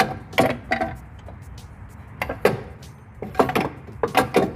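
Irregular knocks and clinks of tools and metal parts as the engine's timing cover is worked loose and taken off.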